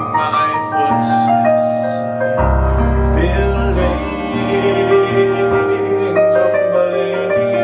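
Keyboard playing an instrumental passage of a slow pop song: held chords under a melody line, with deep bass notes coming in about two and a half seconds in.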